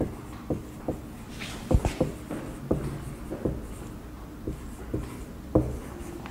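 Marker writing on a whiteboard: irregular taps and short strokes of the felt tip on the board, several a second, the strongest about two seconds in and near the end.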